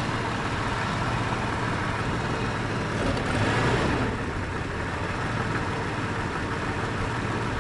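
1996 Jeep Grand Cherokee's 4.0-litre inline-six idling with a shaky, random misfire, the engine note uneven; it swells slightly about three seconds in. The misfire persists despite a new coil, plugs, distributor and crank sensor.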